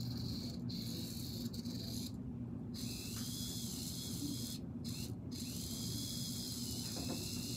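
A toy car's small electric motor whirring with a high hiss and whine. It cuts out briefly several times, and from about three seconds in the whine wavers in pitch.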